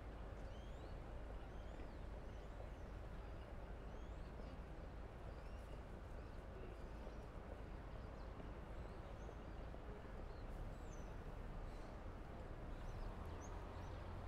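Small birds chirping, many short quick notes sliding up and down, over a steady low rumble of outdoor background noise.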